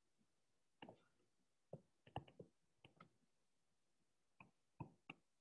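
Faint, irregular clicks and taps of a stylus on a touchscreen while drawing: about a dozen, bunched in the middle and a few more near the end.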